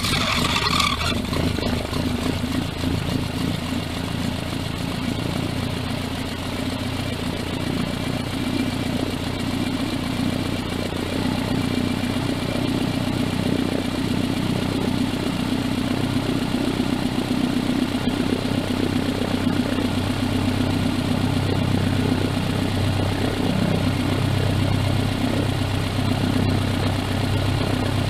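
Engine of a small two-seat ground-effect craft running steadily at low throttle just after starting, with a brief brighter surge in the first second, as the craft taxis slowly on the water.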